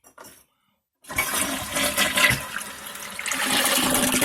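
Toilet flushing: a loud rush of water starts suddenly about a second in and keeps going.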